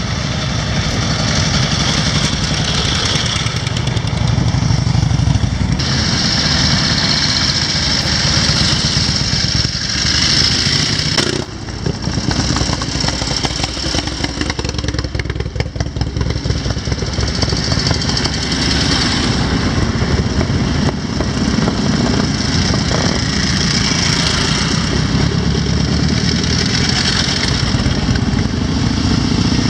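Motorcycle engines running close by as motorcycles ride in one after another, with a brief drop in the sound about a third of the way through.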